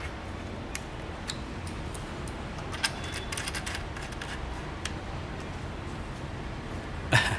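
Light clicks and taps of small parts being handled, scattered irregularly over a steady low hum, with a louder rattle of clicks near the end.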